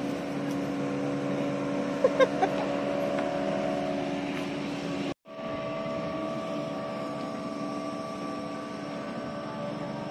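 Speedboat engine running at speed, a steady drone with a constant pitch. The sound drops out for a moment about five seconds in, then the drone carries on.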